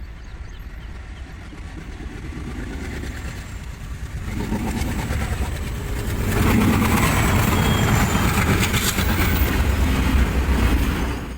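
Express train hauled by a WAP-1 electric locomotive, getting louder as it approaches over the first six seconds. It then runs past with a heavy rumble and rapid clicking of wheels over the rail joints.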